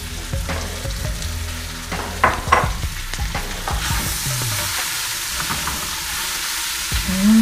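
Linguiça sausage sizzling as it fries in an open aluminium pressure cooker, stirred with a silicone spatula that knocks a few times against the pot. About four seconds in the sizzle grows louder and brighter as bacon goes into the hot fat.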